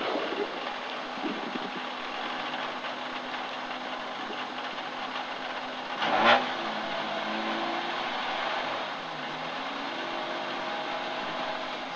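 Rally car engine idling, heard from inside the cabin, with a brief louder burst about six seconds in.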